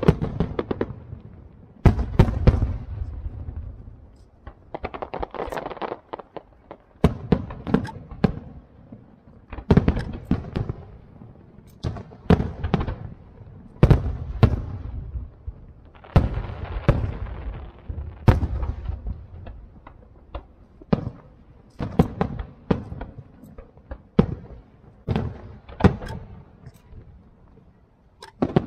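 Aerial firework shells bursting in quick succession: sharp bangs arriving in clusters every second or two, each trailing off in echo, with a lull just before the end.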